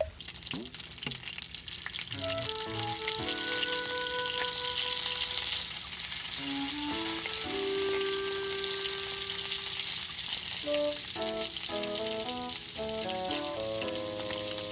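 Food sizzling in hot oil in a pan, a dense steady hiss that starts suddenly as the food goes in. Background music plays over it.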